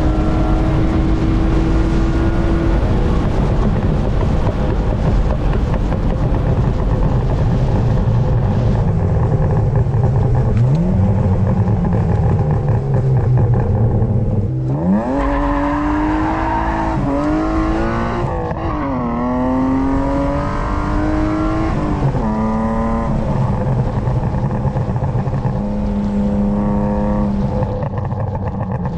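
BMW E36 323i's M52B25 straight-six engine and exhaust while driving. In the first half it runs at a fairly steady pitch. From about halfway in, the engine pitch climbs sharply and rises and falls several times as the car accelerates through the gears.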